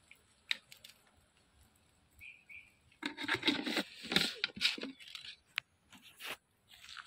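Dry leaf litter and twigs crunching and rustling as someone moves over the forest floor, loudest for about two seconds from three seconds in, with a few light clicks before and after.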